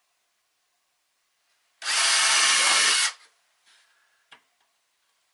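Cordless drill running at full speed for just over a second, boring a pilot hole into the pine wall boards to keep the wood from splitting, then stopping suddenly. A faint small click follows.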